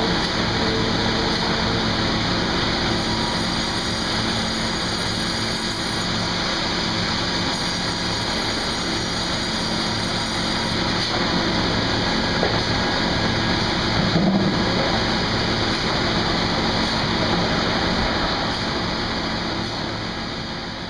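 Sawmill machinery running: a steady mechanical din with a constant motor hum and hiss.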